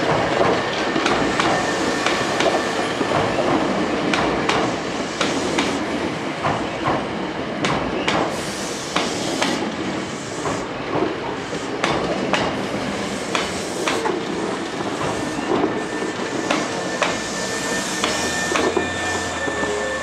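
Hankyu 5300 series electric train rolling through the station at low speed, its wheels clacking irregularly over rail joints and pointwork over a steady rumble.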